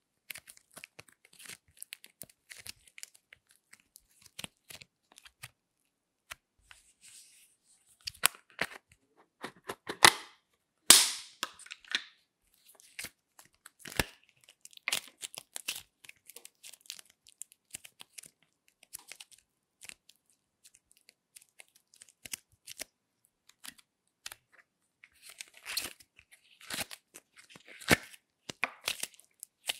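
Scattered sharp clicks and sticky snaps from hands stretching slime and handling small plastic tubs. The loudest snaps come about ten and eleven seconds in, with a busier run of clicks near the end.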